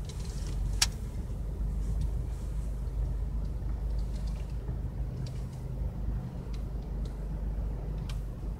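Steady low rumble of a car heard from inside its cabin, with faint scattered ticks and one sharp click about a second in.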